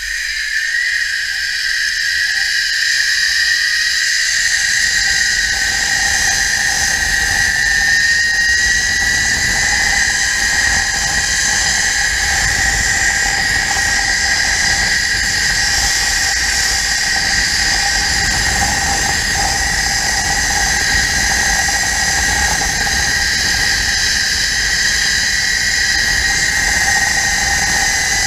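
Zipline trolley pulleys running along the steel cable with a loud, steady whine that rises in pitch over the first few seconds as the trolley gathers speed, then holds. A low rush of wind on the microphone lies beneath it.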